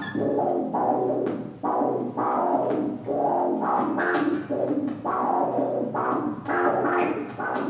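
Live electronic music: pitched, drum-like hits struck every half second or so in an uneven, polyrhythmic pattern over synthesizer tones.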